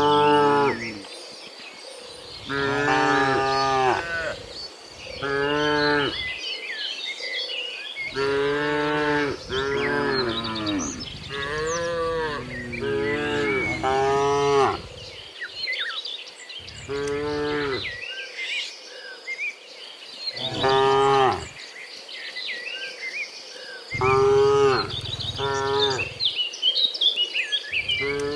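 Cattle mooing over and over: about a dozen drawn-out moos of roughly a second each, some overlapping in a busy stretch midway, from several cows of a herd.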